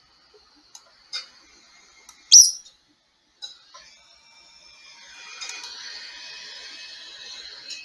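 Mouse squeaking: a few faint clicks, then one loud, sharp, high-pitched squeak about two seconds in, followed by a fainter, continuous high-pitched chittering through the second half.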